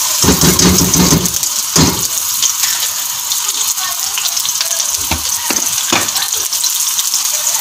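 Sliced onions tipped into hot cooking oil in an aluminium pot, frying with a steady sizzle and a few soft knocks.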